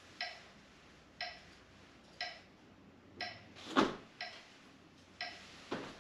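Steady ticking of a timer, one sharp click each second, counting off the held stretch. Two louder whooshes stand out, about four seconds in and just before the end.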